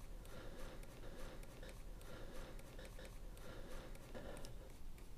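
Faint, scattered small clicks and scrapes of a metal locking ring being threaded by hand onto a motorcycle tyre valve stem, over low room hum.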